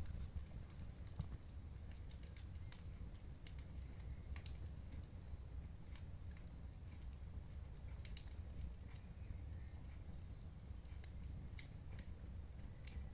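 Wood fire burning in a fireplace: irregular small crackles and pops over a low steady rumble of the flames.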